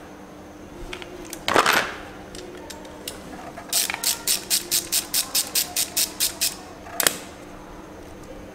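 Metal clicks from work on a Kawasaki Versys 650's Nissin front brake caliper as it is freed for a pad change. A single clunk comes about a second and a half in. Then there is a run of about a dozen quick, evenly spaced clicks, about five a second, and one sharper click about seven seconds in.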